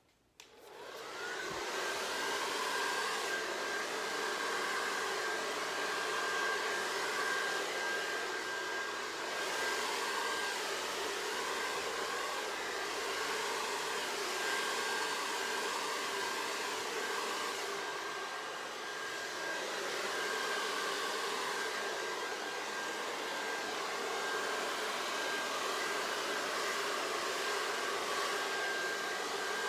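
Hair dryer switched on just after the start, its whine rising as the motor spins up, then running steadily: a rushing airflow with a steady high whine, blowing out poured acrylic paint.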